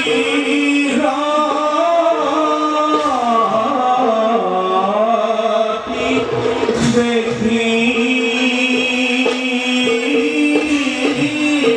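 Live Assamese Bhaona music: male voices chanting a devotional song in long held notes, with drum strokes throughout.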